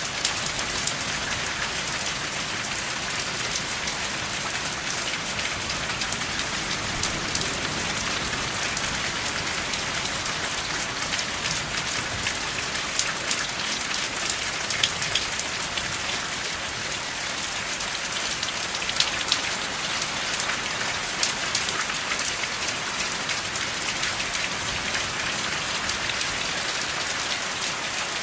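Steady rain falling, with many individual drops ticking sharply through the even hiss; no thunder.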